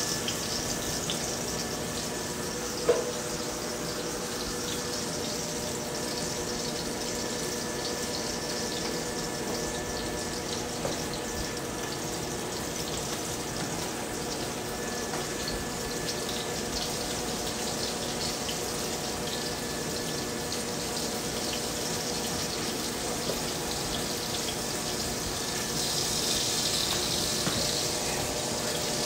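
Cornstarch-dredged chicken breast pieces sizzling steadily as they brown in a shallow layer of hot oil in a skillet, the sizzle swelling briefly near the end. A single knock about three seconds in.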